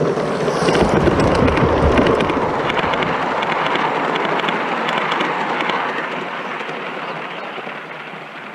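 Gauge 1 model train, a steam locomotive hauling coaches, passing close by: a steady rush of running noise with fine rapid clicking of wheels on the track. It is loudest a second or two in and fades away over the last few seconds as the train moves off.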